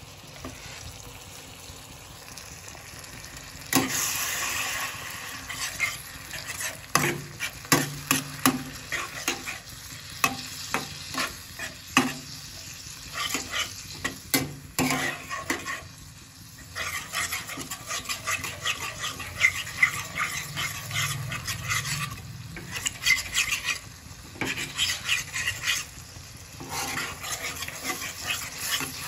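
Thick onion masala gravy sizzling in a metal frying pan while a flat steel spatula stirs it, scraping and clinking against the pan again and again. The sizzle grows louder about four seconds in, as the stirring picks up.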